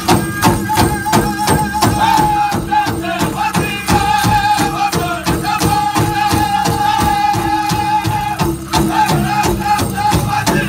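Powwow drum group singing over a steady drumbeat of about four beats a second, with high held notes from the singers.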